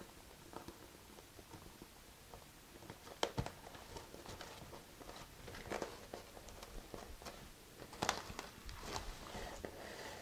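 Faint handling sounds: rustling of a nylon webbing strap and clear vinyl bag as a metal snap cap is pushed through a hole in the strap, with a couple of sharper clicks about three and eight seconds in.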